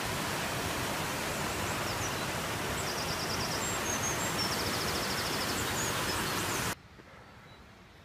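Steady rush of a waterfall in a wooded glen, with high chirps and trills over it; the rushing cuts off suddenly near the end, leaving a much quieter background.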